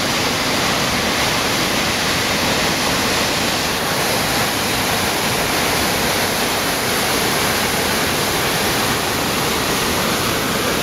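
Flash-flood water, thick with mud, pouring over a rock ledge and rushing down an arroyo: a loud, steady roar of water.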